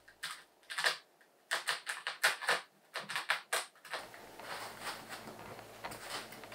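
Scalpel blade stabbing and slicing into closed-cell shadow foam around a socket outline, a quick irregular series of short scratchy crunches. About four seconds in it gives way to a denser run of small scrapes and clicks as chrome sockets are pushed into the cut-outs, with a low hum underneath.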